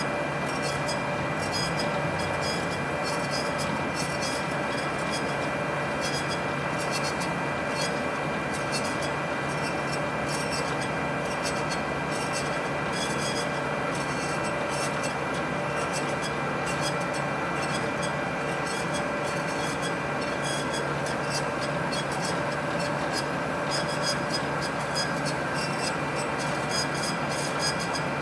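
DoAll horizontal band saw running steadily, its three-phase motor and 1-inch blade giving a continuous mechanical noise with a few steady tones.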